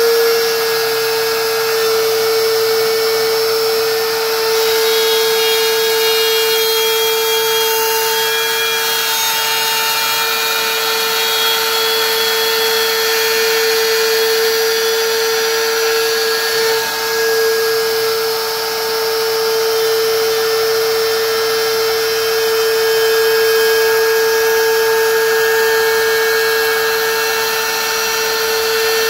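DeWalt plunge router running at full speed with a steady high whine, its bit cutting a groove in a wooden panel with a rushing noise as it is pushed along.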